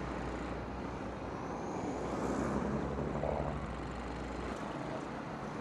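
Motorcycle on the road: a steady rush of engine, tyre and wind noise that swells slightly about two seconds in, with a low hum that fades out near the end.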